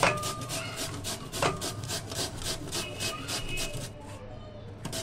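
Raw peeled potato rasped back and forth on a stainless steel box grater, a rapid scraping rhythm of about four or five strokes a second. Two louder knocks, at the start and about a second and a half in, are the grater striking the steel bowl.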